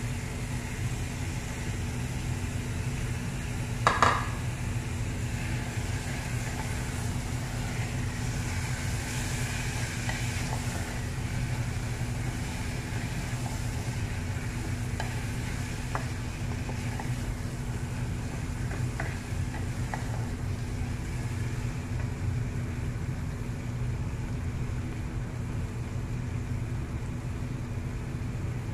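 Onion-tomato masala sizzling in an aluminium pressure cooker while a wooden spoon stirs it, with light scraping ticks and one sharp knock about four seconds in. A steady low hum runs underneath.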